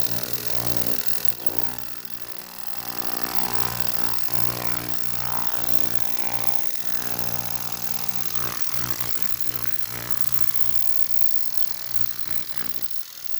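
Ultrasonic cleaning tank with fuel injectors in it, running with a steady electric hum and buzz that stops near the end.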